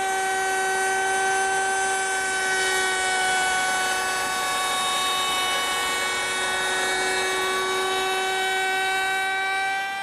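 Router mounted in a router table, running at full speed with a steady high-pitched whine while a board's edge is fed past the bit against the fence, cutting a bullnose profile.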